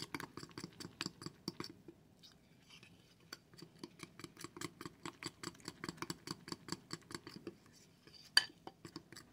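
Metal spoon stirring a wet batter in a glass bowl, clicking and scraping against the glass several times a second, with a brief lull a couple of seconds in. One sharp, louder clink of the spoon on the glass comes near the end.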